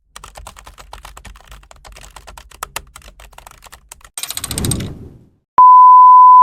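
Keyboard typing sound effect: a quick, irregular run of key clicks for about four seconds, then a short rattling burst. About five and a half seconds in, a loud, steady censor bleep tone starts.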